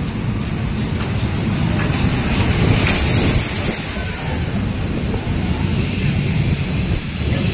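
Steam locomotive and its coaches pulling into the platform and rolling past at close range: a low rumble of wheels on rails, with a loud hiss about three seconds in as the locomotive goes by.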